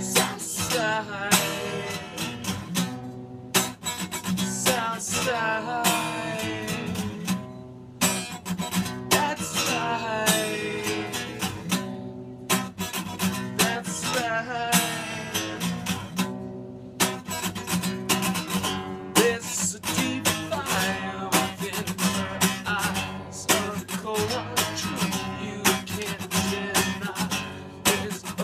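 A man singing while strumming an acoustic guitar, a live solo song with steady, regular strums under the voice.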